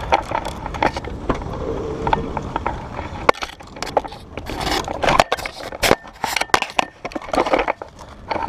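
Clothing, tactical gear and a rifle rubbing and scraping against a body-worn camera as a player climbs into a car. A low rumble for the first three seconds, then many sharp clicks and knocks of handling noise.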